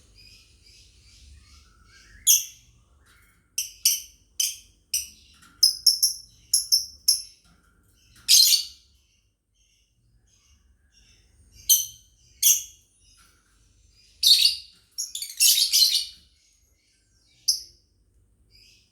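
Lovebirds chirping: short, high chirps, several in quick succession a few seconds in, with louder, longer shrill calls about the middle and again near the end.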